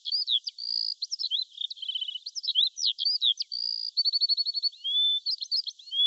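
A songbird singing a fast, varied song of high whistles, slurred notes and short rapid trills, with hardly a pause.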